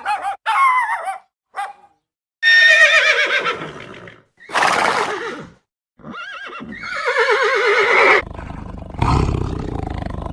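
Horse whinnying: long, trembling calls that fall in pitch, twice, with a short noisy snort-like blast between them. Near the end a different, low rumbling sound takes over.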